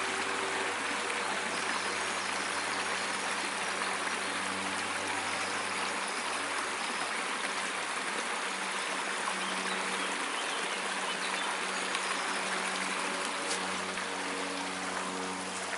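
Shallow brook babbling steadily as water runs and splashes over stones.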